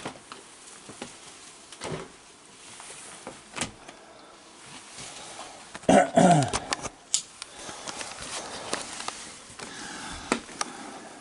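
Scattered knocks and clicks of someone moving about and going through a door into a house, with a brief falling squeal about six seconds in.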